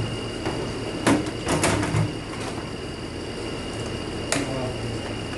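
Metal transmission parts being handled on a workbench: a sharp knock about a second in, a quick cluster of clanks and clinks soon after, and one more knock near the end, over a steady faint high whine.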